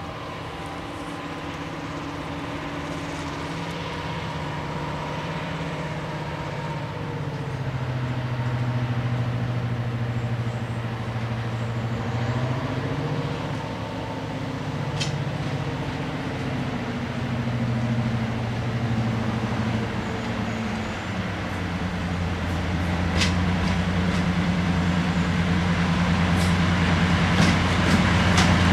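A British Rail Class 55 Deltic diesel locomotive, powered by twin Napier Deltic two-stroke engines, hauls a passenger train toward the listener. Its engine note grows steadily louder and its pitch drops and rises a few times, with a few sharp clicks near the end.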